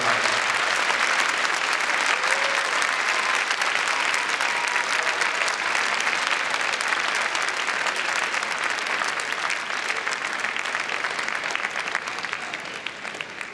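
Large audience applauding steadily, a dense mass of handclaps that tails off near the end.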